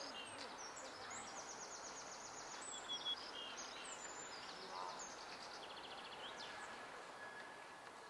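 Small birds chirping and trilling over steady background noise, with two short clicks about three seconds in.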